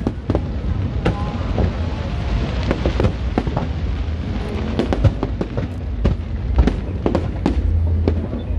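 Aerial fireworks bursting in quick succession: a dense run of sharp bangs and crackles over a continuous low rumble, with music playing underneath.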